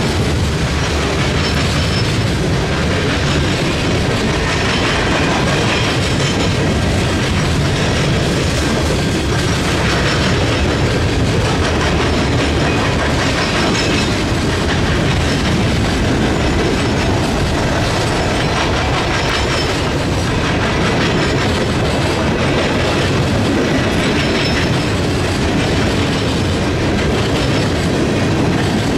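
Freight train cars rolling steadily past close by: covered hoppers, a loaded lumber flatcar and gondolas, their wheels on the rails making a continuous loud rolling noise with repeated clicks.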